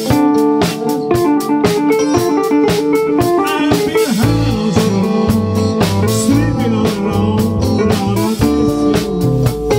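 Live rock band playing: electric guitars over a drum kit and keyboard, with bent lead-guitar notes. The bass comes in much heavier about four seconds in.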